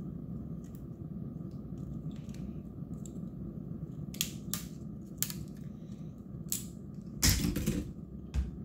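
Plastic tabs and clips of a NineBot scooter battery pack snapping as its circuit-board strip is pried off the 18650 cells with a hand tool. There are several separate sharp clicks, then a louder crackling crunch near the end and one last click.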